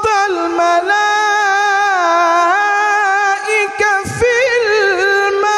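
A man singing an Islamic ibtihal unaccompanied, stretching a single syllable over long held notes with wavering melismatic ornaments a little past halfway. There is a short break for breath about four seconds in.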